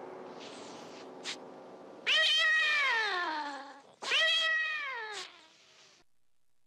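Domestic cat yowling twice: two long, drawn-out cries, the first about two seconds in and the second about two seconds later, each sliding down in pitch.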